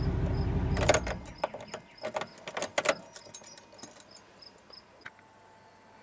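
A Silverado 2500's 8.1-litre Vortec V8 idling, then switched off with the ignition key about a second in, the low rumble stopping abruptly. Keys then jingle and click for a couple of seconds as the key is handled.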